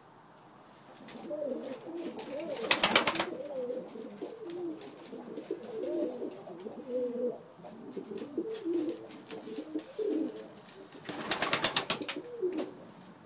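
Domestic pigeons cooing, several overlapping low warbling coos going on almost throughout. Twice, at about three seconds and again near the end, a brief burst of rapid flapping rises louder than the cooing.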